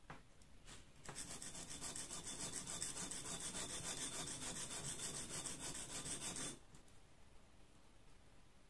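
Steel scissor point being rubbed by hand in quick short strokes on a carborundum sharpening stone, a dry scratching that sharpens the tip. It starts about a second in and stops about two seconds before the end.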